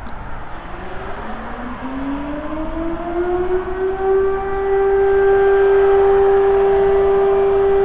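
Fire siren winding up: one tone rising in pitch over the first few seconds, then holding a steady pitch and growing louder.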